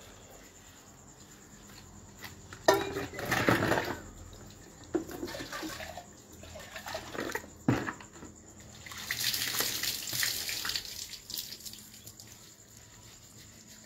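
Water scooped with a steel mug from a plastic bucket and poured and splashed out: a loud splash nearly three seconds in, smaller splashes a few seconds later, then a steady pour lasting about two seconds.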